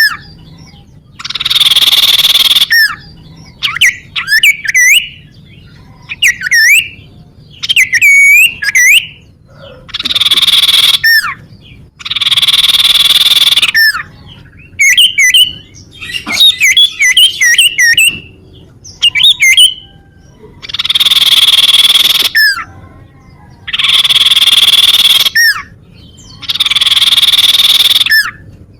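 Common iora (cipoh) calling: long harsh rasping buzzes, repeated every few seconds, alternating with bursts of short whistled notes and quick rising and falling glides.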